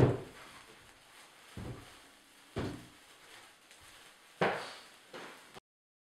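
A handful of separate, irregularly spaced thumps and knocks, the loudest at the very start and another about four and a half seconds in. The sound cuts off abruptly near the end.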